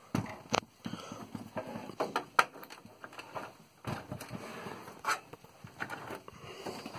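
Irregular clicks, taps and knocks of handling as a hand works at the ribbon cable and connectors on the back of an Apple Lisa 2 computer case, with the phone moving about. The sharpest knocks come about two and a half and five seconds in.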